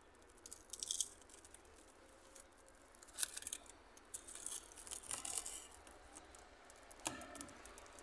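Plastic stretch film crackling faintly as it is pulled off the roll and wound tight around a grafted linden stump, in a few short spells of rustling.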